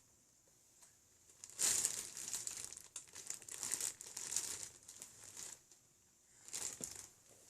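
Snack packaging crinkling as a child handles it while eating, in irregular bursts for a few seconds, then once more briefly near the end.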